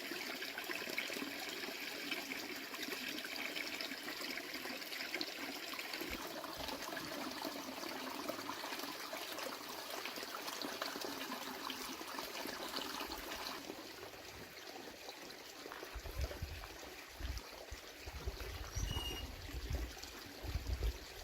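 Water running with a steady trickle that softens about two-thirds of the way through. Irregular low rumbling bumps join it in the last few seconds.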